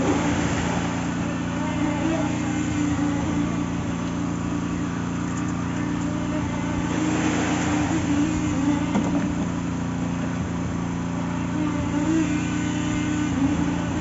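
Concrete mixer truck's engine running steadily at a constant pitch.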